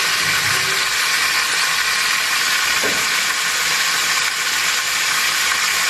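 Surgeonfish pieces frying in a pan of oil, with a loud, steady sizzle.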